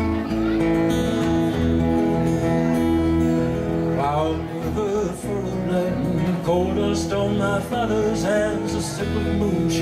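Live solo performance of a song: a single amplified guitar plays chords through a PA, and a man's singing voice comes in over the guitar about four seconds in.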